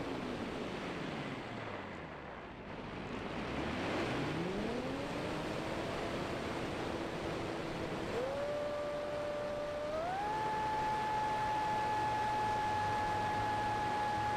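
Electric brushless motor and small propeller of an RC racer plane, heard from an onboard camera over rushing wind. The motor whine dies away as the throttle is cut, then climbs back from about four seconds in, steps up twice, and holds a high steady whine at full throttle.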